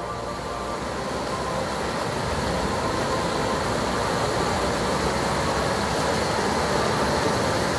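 Fast river rapids rushing over rocks, a steady, loud rush of water.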